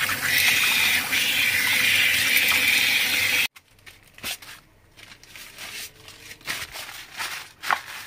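Kitchen tap water running steadily over raw chicken wings as they are rinsed by hand; it cuts off abruptly about three and a half seconds in. Soft, scattered rustling and crinkling of paper towels follows as they are pressed onto the wings to dry them.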